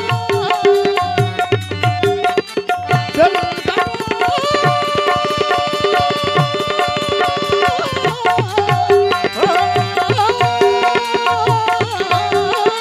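Devotional bhajan music: a harmonium holds a melody over steady hand-drum beats, with small hand cymbals clinking in a fast, even rhythm.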